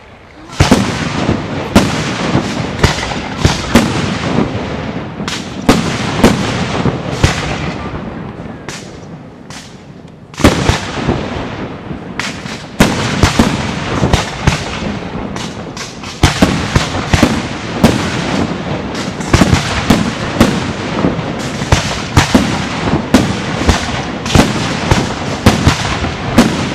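Fireworks display: a rapid, dense run of aerial shell bangs with crackling between them. It thins out and quietens for a couple of seconds around eight to ten seconds in, then picks up again just as densely.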